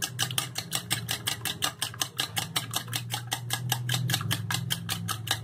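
A fork beating a raw egg in a glass bowl, tapping against the glass in quick, even clicks, about seven a second.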